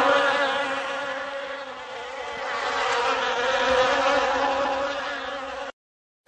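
A steady buzzing drone that fades, swells again and then cuts off suddenly near the end.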